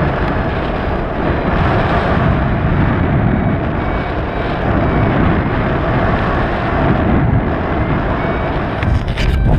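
Airflow of paragliding flight rushing over the microphone as a steady, loud, low rumble, with a few sharp knocks near the end.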